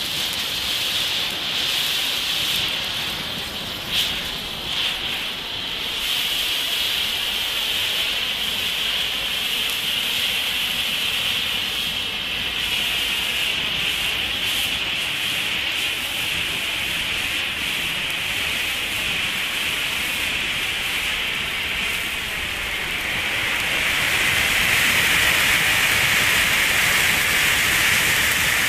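Two handheld Jorge blue bengal flares burning with a steady, loud hiss of spraying sparks, with two sharp pops about four seconds in. Near the end the hiss gets louder and deeper.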